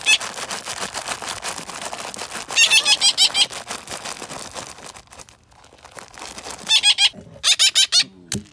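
Baby parrots calling in two short bursts of rapid, high, repeated chirps, about two and a half and seven seconds in, over a light crackle of small clicks.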